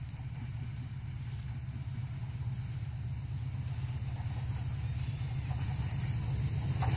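Hyundai Rotem diesel locomotive approaching with a container train, its engine a steady low rumble that grows gradually louder as it nears.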